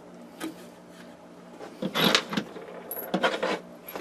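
Small metal screws clinking and rattling as they are handled and picked out of their container, in a few short clusters.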